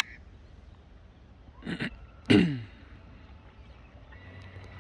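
A man clearing his throat about two seconds in: a short rasp, then a louder one that drops in pitch.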